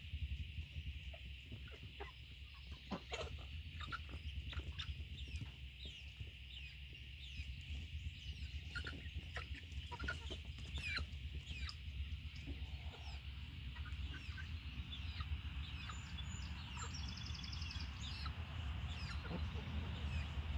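Domestic hens clucking softly with short calls, among scattered light taps, over a steady low hum.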